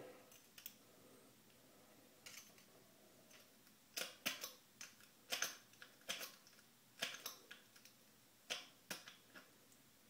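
Light sharp clicks, often in pairs about a second apart, starting about four seconds in: a half-diamond lock pick and tension wrench working the pins of an American padlock pinned with one spool pin and serrated pins.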